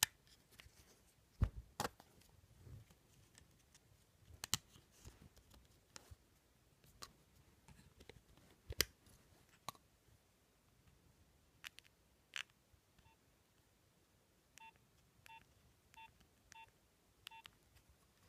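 Scattered plastic clicks and knocks as a Nokia 1100 is handled, then five short, evenly pitched keypad beeps about half a second apart as a code is keyed in and accepted.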